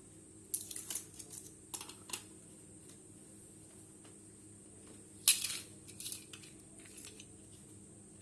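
Scattered light clicks and clatter of small hard objects being handled on a workbench, in a few short groups, with the loudest knock about five seconds in, over a steady low hum.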